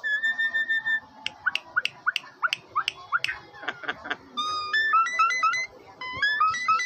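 Jalak Nias bird whistling: one long held note, then a run of short upward-sliding whistles about three a second, then quick stepped whistled phrases.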